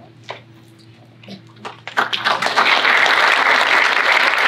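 Audience applauding: a few scattered claps, then about halfway through the room breaks into applause that builds quickly and holds steady.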